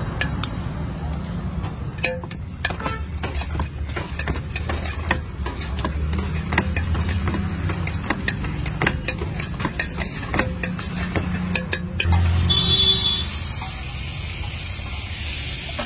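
A metal spoon clinking and scraping against a large steel pot as a chole salad is stirred and tossed, many sharp clicks in quick succession. About twelve seconds in the clinking stops and a steady hiss takes over, butter sizzling on a hot iron tawa.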